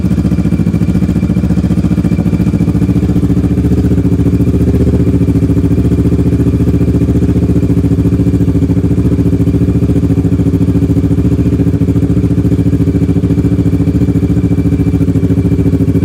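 Kawasaki Versys 650's parallel-twin engine idling steadily through a full aftermarket exhaust system with a polished stainless muffler, giving a deep bass exhaust note. It is still warming up after a cold start.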